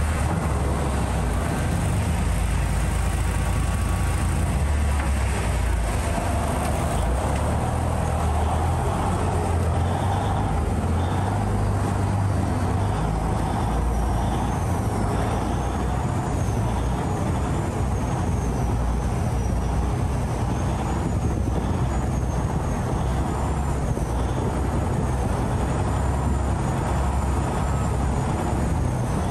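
Saen Saep canal express boat's engine running loudly and steadily, a deep rumble heard from on board with the rush of the ride under it.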